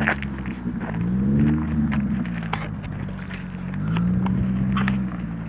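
Ford Focus ZX3's four-cylinder engine revving, its pitch rising and falling twice before holding steadier near the end, with scattered crunches of gravel.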